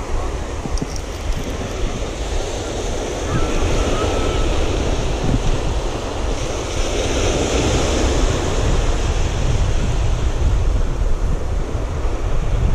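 Ocean surf washing over a shoreline reef, with wind buffeting the microphone; the wash swells louder about seven seconds in.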